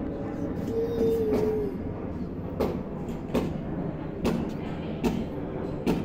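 Airplane passing overhead: a steady low rumble, with several irregular sharp clicks and a short hummed vocal note about a second in.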